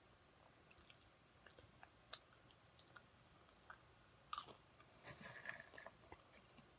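Near silence with faint scattered clicks and crackles, the loudest a short click about four and a half seconds in, followed by a second or so of faint crackling.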